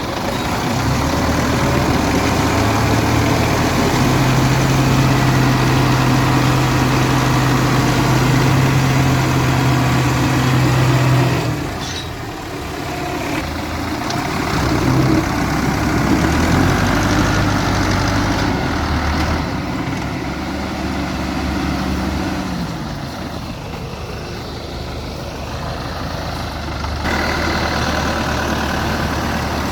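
Tractor diesel engines running under load, the engine note shifting in pitch as they work, with abrupt changes in the sound about twelve seconds in and again near the end.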